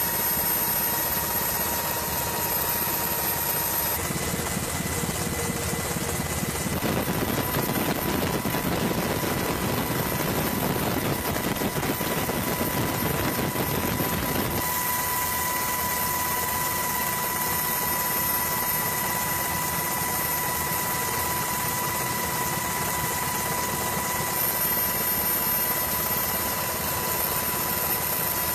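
Steady aircraft engine noise with a constant high whine, as heard on board the aircraft. Its character shifts a few times, at about 4, 7 and 15 seconds in.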